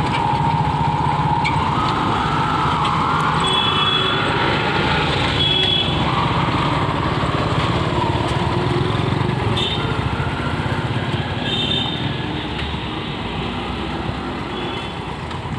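Road traffic moving off at low speed: the small engines of motorcycles and an auto-rickshaw running, with cars among them. A wavering whine rises and falls in the first half, and short high tones sound now and then.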